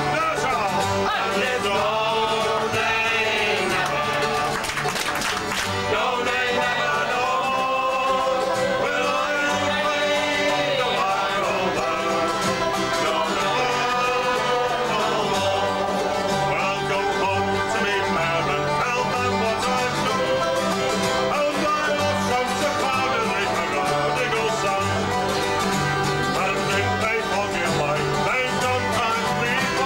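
Folk band playing a lively tune live, with banjo and acoustic guitar over a bass line.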